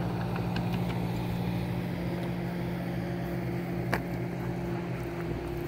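An engine running at a steady idle, a low even hum with a faint higher tone joining about two seconds in. A single sharp click about four seconds in.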